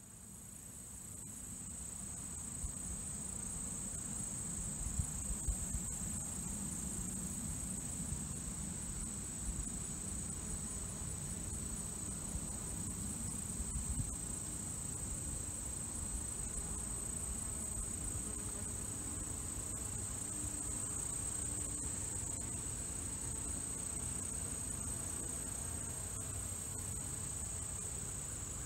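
A steady, high-pitched chorus of insects trilling without a break, over a low rumble, with a few soft bumps about five and fourteen seconds in.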